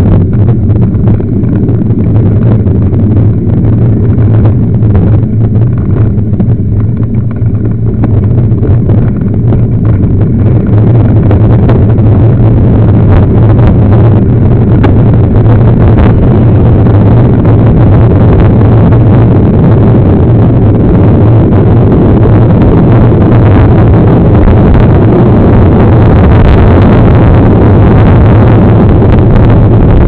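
Wind buffeting the microphone of a bike-mounted camera, mixed with tyre rumble on a dirt road, as a mountain bike rolls along: a loud, steady roar. It grows fuller and harsher about eleven seconds in.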